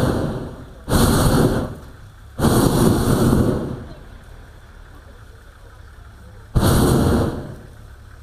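Hot-air balloon propane burner firing in short blasts of rushing flame, each about a second long: one dies away at the start, then three more, about a second in, at two and a half seconds, and near the end.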